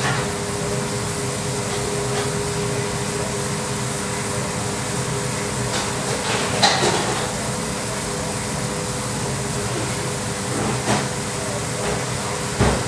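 Steady hum and rush of a commercial kitchen's ventilation and gas burners, with a few brief knocks of kitchen clatter.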